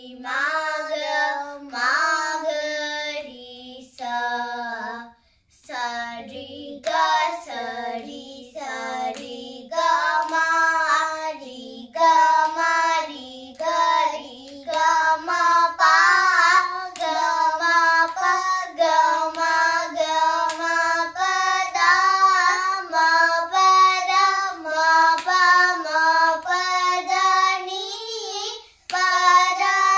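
Two young girls singing a Carnatic alankaram together in solfa syllables (sa ri ga ma), stepping through the notes in misra jati jhampa tala. The singing breaks off briefly about five seconds in.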